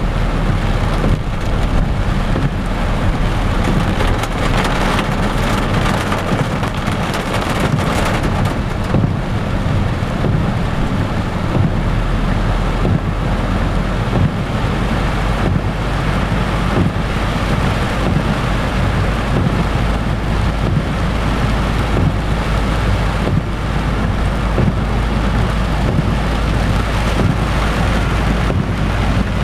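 Heavy storm rain pelting a car's roof and windscreen, heard from inside the cabin, over the steady low rumble of the car driving on a wet road.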